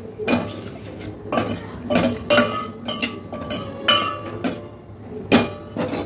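A spoon stirring tamarind water into the tomato and spice base in a stainless steel pot, clinking and scraping against the pot's sides in a series of sharp, irregular strikes, one or two a second.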